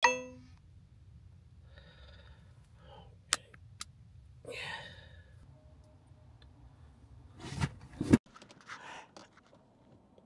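A brief ringing tone at the very start, then a faint low hum in a car's cabin with a few sharp clicks and muffled handling thumps. The hum cuts off suddenly about eight seconds in.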